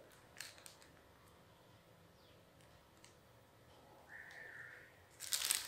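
Faint clicks and rustles of a clear plastic packet being handled, then loud crinkling of the plastic near the end. A faint short tone sounds a little after four seconds.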